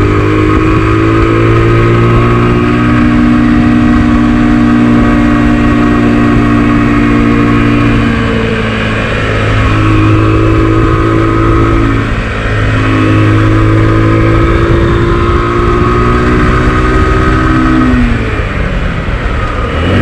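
Motorcycle engine running under way on a winding road. Its note holds fairly steady and dips briefly three times as the throttle eases.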